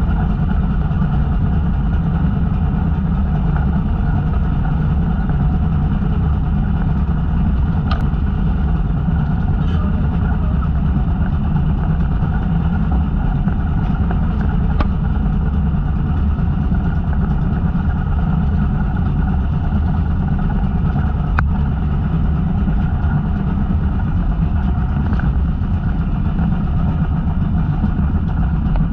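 Engine of a small motorized outrigger fishing boat running steadily while the boat is under way, with three brief sharp clicks scattered through it.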